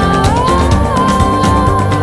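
Background music with a steady beat and a held, sliding melody line.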